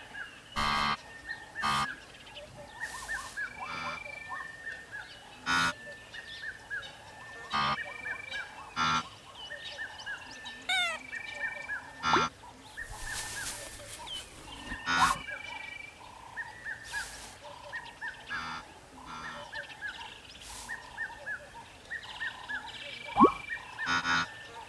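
Blue wildebeest giving short nasal honking grunts every second or two, the loudest near the end, over a run of small high chirps.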